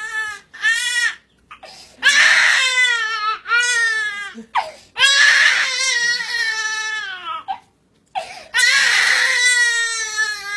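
Baby crying hard: a string of long, high wails, each falling a little in pitch, broken by short gasps for breath.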